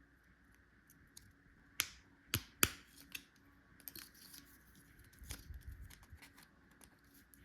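Small toy tools and packaging being handled: a few sharp clicks and taps close together, then scattered rustles and light knocks.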